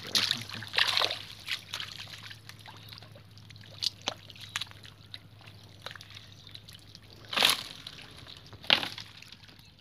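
Shallow muddy water sloshing and splashing as someone wades and handles it, with two louder splashes near the end.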